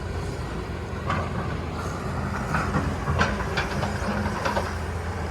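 Low, steady rumble of a heavy engine running, with scattered knocks and clanks over it.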